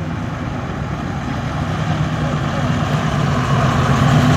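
V8 muscle car engine running at a low, steady speed, getting gradually louder.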